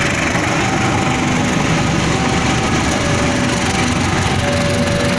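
CC 201 diesel-electric locomotive and its passenger coaches passing close by: a loud, steady rush of engine and wheels running over the rails, with short steady tones coming and going.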